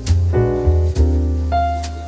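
Instrumental background music led by piano over a bass line, with notes changing every half second or so.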